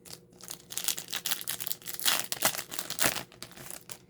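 Foil Yu-Gi-Oh booster pack wrapper being crinkled and torn open, in a run of irregular crackles and rips.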